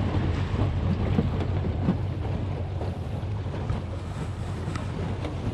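A small fishing boat's outboard motor running steadily with the boat under way, with wind buffeting the microphone and water rushing past the hull.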